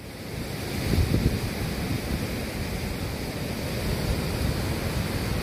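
Heavy storm surf breaking and washing up the beach, with strong wind buffeting the microphone in low rumbling gusts. The sound swells within the first half-second and stays loud.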